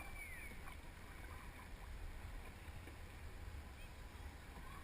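Quiet sound of canoes on the water during back-paddling: faint paddle strokes and water over a steady low wind rumble on the microphone.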